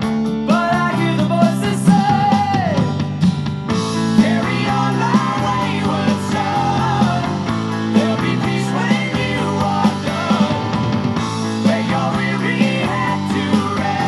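Rock music played through a Sony SS-U11 bookshelf speaker driven by a McIntosh MAC 1900 receiver, picked up by a microphone in the room.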